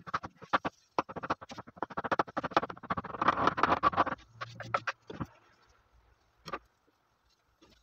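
Kitchen knife chopping soft roasted eggplant on a wooden cutting board: a quick run of blade knocks on the board for about four seconds, then a couple of single taps.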